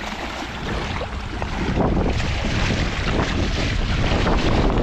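Water splashing and sloshing as legs in waders push through a shallow river, getting louder about two seconds in, with wind buffeting the microphone.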